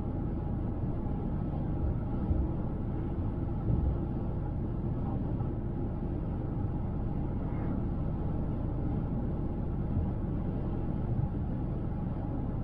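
Car driving at highway speed: a steady low road rumble from tyres and engine, with two brief thumps about two and four seconds in.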